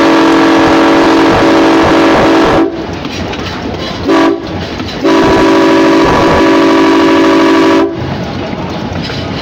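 Locomotive air horn on a GE 80-ton center-cab switcher sounding a chord in three blasts: a long blast that ends about two and a half seconds in, a short one about a second and a half later, and a final long blast of nearly three seconds. This is the end of the long-long-short-long signal for a road crossing. Between the blasts the train's steady running rumble can be heard.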